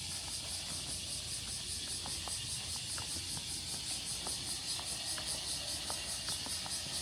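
Steady, rapidly pulsing high-pitched insect buzzing over a low street rumble, with faint scattered clicks.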